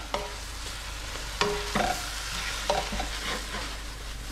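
Mud crab pieces frying and sizzling in a hot pan of chilli sauce while being stirred, with a steady sizzle and the stirring utensil knocking and scraping against the pan every second or so.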